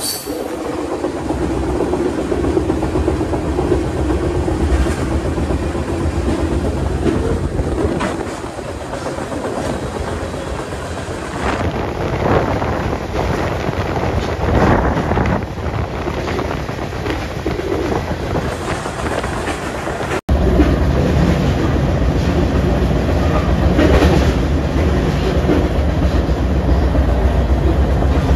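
Moving freight train heard from on board one of its cars: a steady rumble of steel wheels on the rails, with scattered knocks and clanks. About twenty seconds in there is a cut, after which the low rumble is louder.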